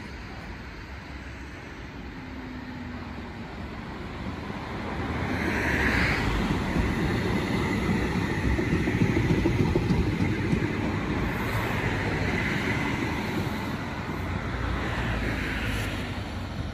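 CAF Urbos 100 tram approaching and passing close by on the rails. The rumble of its wheels builds from about four seconds in, with a steady high whine through the loudest part.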